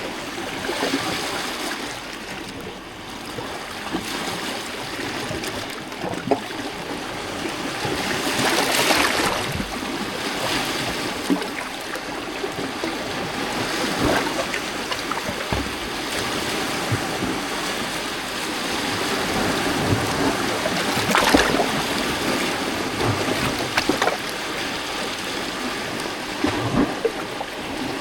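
Small lake waves lapping and splashing against a rocky shore, a continuous wash of water broken by irregular louder splashes, the strongest a few seconds apart in the middle and latter part.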